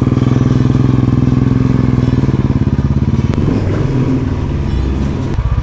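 Motorcycle engine running under throttle as the bike pulls away, with a fast, steady exhaust beat; the engine note shifts about three and a half seconds in, then settles again.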